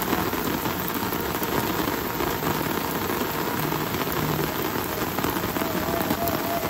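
Steady rain falling, a dense patter of many drops.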